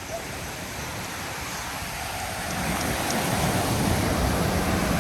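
Ocean surf washing onto a sandy beach, a steady rush that swells louder about halfway through.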